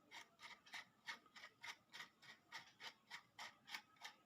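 Faint, quick, evenly spaced scratchy clicks, about four or five a second: a screwdriver turning a small terminal screw on a switch-board socket to clamp a wire.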